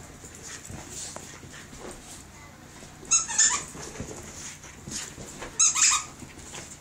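Young Bugg puppy (Boston terrier–pug cross) scrambling around on a rug during zoomies, with scuffling throughout and two short, loud, high squeaks about two and a half seconds apart.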